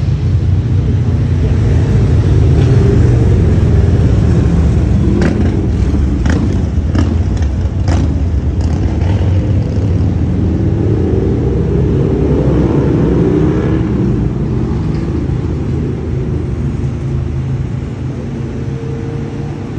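Road traffic going by: a loud, steady low rumble of vehicles, with one engine note rising and falling near the middle and a few sharp clicks before it.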